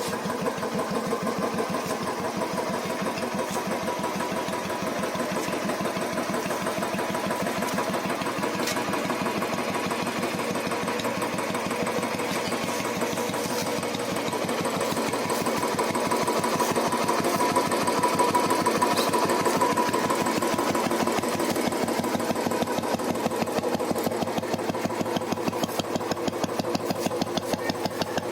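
Royal Enfield Bullet's single-cylinder four-stroke engine running at idle with an even, rapid beat, picking up a little for a few seconds past the middle before settling back.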